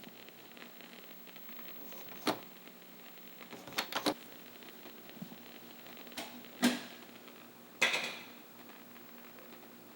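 About half a dozen sharp knocks and creaks, unevenly spaced over faint room tone; the loudest come about two seconds in, near the middle and about eight seconds in, the last with a short ringing tail.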